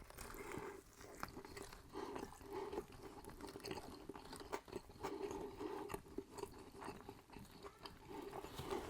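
Close-miked chewing of fried chicken, with irregular crunches and small wet mouth clicks.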